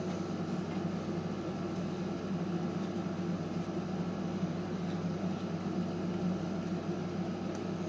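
Steady low mechanical hum with an even hiss, unchanging throughout.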